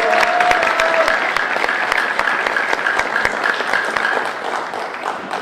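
Audience applauding, a dense run of many hands clapping that fades away near the end.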